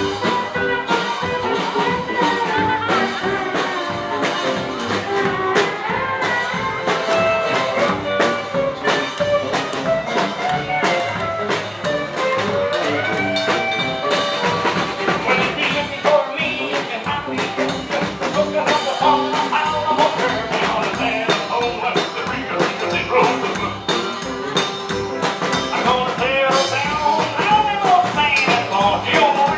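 Live rockabilly band playing, with electric guitar over a steady drum beat.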